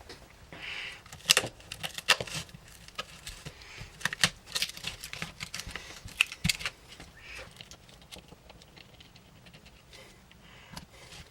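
Small plastic and metal camera parts being handled and pried apart during a teardown: irregular sharp clicks and taps with a few short scrapes, thinning out after about eight seconds.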